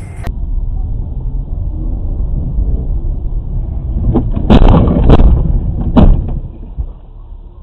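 Car collision recorded from a dashcam inside the car: low engine and road rumble, then a burst of loud knocks and crunching about four and a half seconds in, and another sharp bang about six seconds in.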